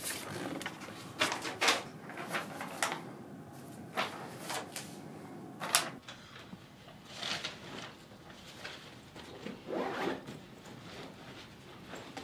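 Sheets of paper being handled, a series of short, crisp rustles, with a few longer, softer rustles in the second half.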